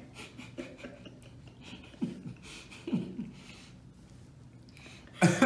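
Quiet eating sounds at a table: small mouth clicks and the rustle of handled sandwiches, with three short, falling hums or chuckles, and a louder burst of voice just before the end.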